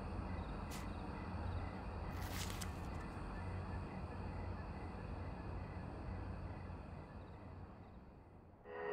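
Quiet outdoor evening ambience: a steady low hum with faint, evenly repeating chirps, a brief rustle about two seconds in, fading out near the end.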